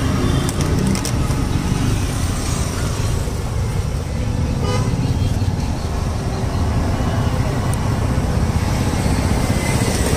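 Steady street traffic noise from passing road vehicles, with a few light clicks near the start.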